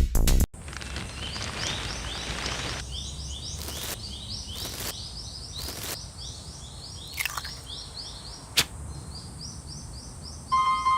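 Rapid, evenly repeated high chirps like bird calls over a hiss, crossed by three short whooshes, a falling whistle and one sharp crack. Music with steady held tones comes in near the end.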